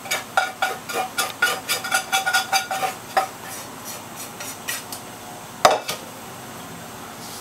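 A utensil scraping and knocking against a ringing metal pan, a fast run of clicks for about three seconds, as the crushed biscuit and melted margarine mixture is emptied into a baking tray. Then softer scraping, and one sharp knock about five and a half seconds in.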